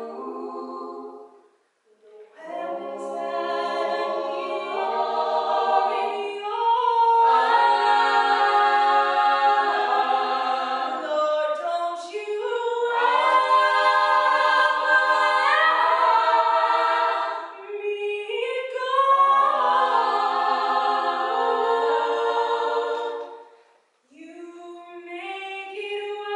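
Vocal trio of two women and a man singing a cappella in harmony, held chords with sliding vocal lines, loudest through two long phrases in the middle. The singing breaks off briefly near the start and again near the end.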